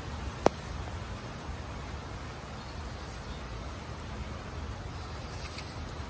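Steady hiss of light rain with a low rumble underneath, and one sharp click about half a second in.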